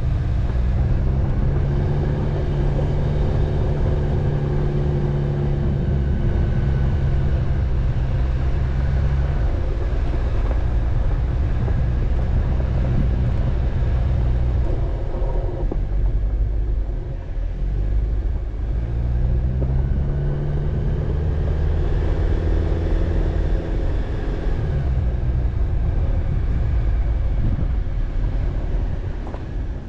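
A car driving on a dirt road: steady engine and tyre rumble. The engine note falls away around the middle and climbs again a few seconds later.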